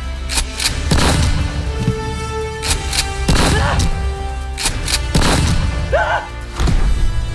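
A string of gunshots, about eight sharp shots spaced unevenly, over background music with held notes.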